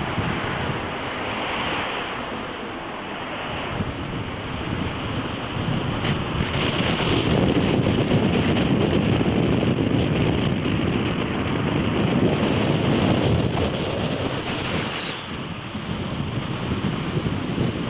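Wind rushing over the microphone from a moving vehicle on a mountain road. It is a steady roar that swells louder in the middle and eases near the end.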